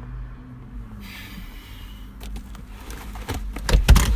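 A Land Rover SUV's door being opened and someone scrambling out: scattered clicks and knocks that build to a few loud thumps near the end.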